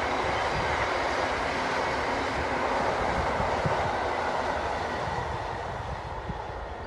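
A train running past on the line, the steady noise of wheels on the rails fading away as it draws off, about five seconds in.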